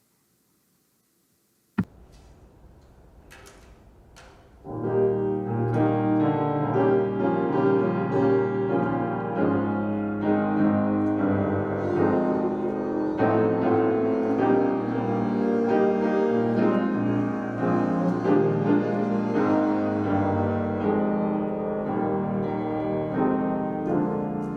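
A sharp click about two seconds in, then instrumental music on piano with bowed strings, starting about five seconds in.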